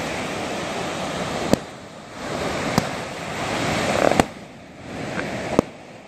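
Balloons popping: four sharp pops, roughly one every second and a half, over a steady rush of surf and wind.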